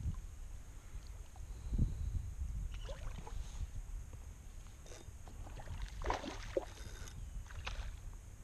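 Water splashing in short irregular bursts as a hooked redfish thrashes at the surface close to a kayak, over a low steady rumble.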